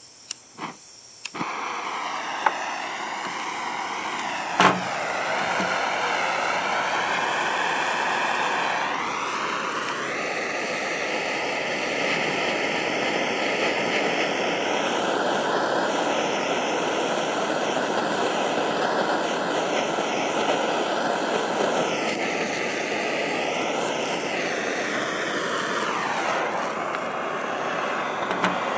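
Hand-held propane torch burning with a loud steady hiss, heating the end of a high-voltage capacitor to melt the solder out. The flame starts about a second and a half in after a few clicks, a sharp click comes about four and a half seconds in, and the hiss stops near the end.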